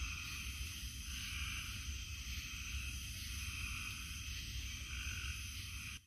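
Summer night chorus of frogs calling together: a dense, steady chorus with a slight pulsing, over a low rumble.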